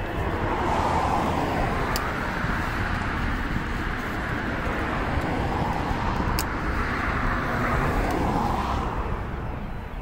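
Distant road traffic: a steady rush of passing vehicles and tyre noise, swelling about a second in and again near the end.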